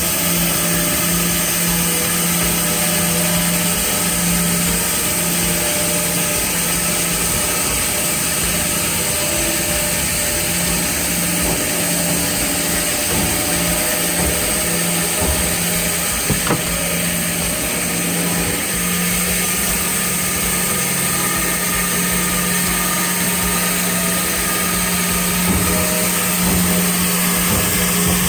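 Sawmill machinery running steadily: a constant motor hum with a wide rushing noise over it. A couple of brief knocks come through, one about halfway and one near the end.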